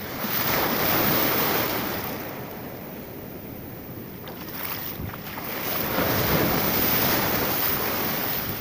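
Small waves washing up the sand right at the microphone, swelling twice about five seconds apart.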